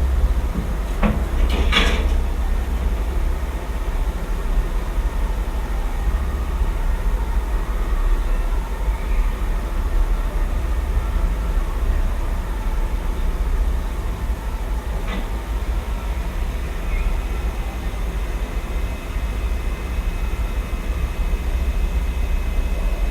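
Dell XPS 13 laptop cooling fan spinning up about two seconds in and running at full speed from about ten seconds in, a faint whir with a thin steady whine, under a louder steady low rumble of city noise. A few sharp clicks come near the start and once about fifteen seconds in.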